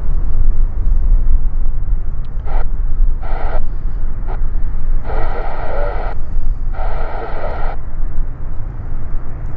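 A steady low rumble, with several short, tinny bursts of air traffic control radio from an airband scanner, the longest between about five and eight seconds in.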